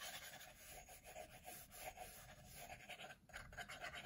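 Kaweco AL Sport mechanical pencil with 0.7 mm lead scratching across sketchbook paper in a run of quick, faint sketching strokes.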